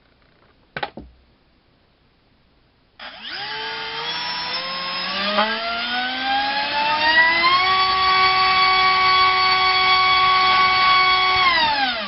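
RCinpower QAV2206 1900KV brushless motor on a 4-cell pack spinning a 5x4 three-blade prop on a thrust stand. After a brief click about a second in, it starts about three seconds in with a whine that rises steadily in pitch as the throttle comes up. It holds steady at full throttle, near that prop's limit on 4 cell, then begins to wind down just before the end.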